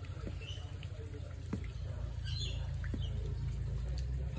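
A few separate drops plopping into a shallow puddle of floodwater on concrete, against a steady low rumble, with short bird chirps in the background.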